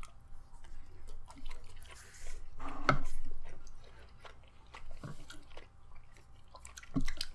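Close-up chewing and mouth sounds of people eating fried rice, with small clicks from utensils and dishes. A louder noise comes about three seconds in and another near the end.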